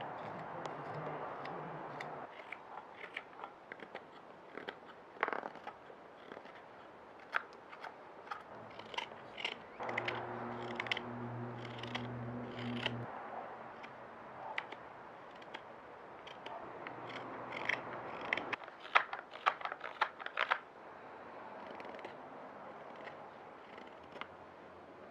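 Carving tool cutting and paring green wood while a spoon blank is roughed out: an irregular string of short crisp cuts and scrapes, busiest near the middle and again towards the end. A low steady hum sounds for about three seconds in the middle.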